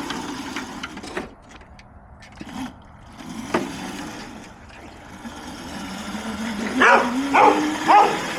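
Electric drift cart's motor whining, rising in pitch over the last few seconds as it speeds up. A dog yips several times near the end.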